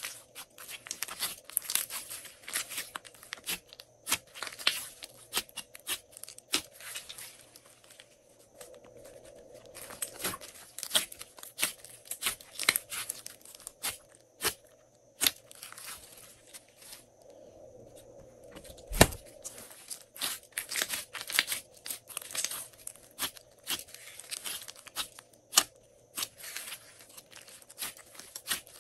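Hands kneading, stretching and pressing a large mass of glossy slime: a continuous sticky crackling and clicking as it is pulled and squeezed, with one heavy thump about two-thirds of the way through.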